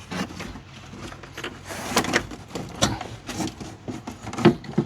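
Gray-water drain and vent pipe pieces being worked loose and pulled down by hand: irregular scraping, knocking and rattling, with a sharper knock near the end.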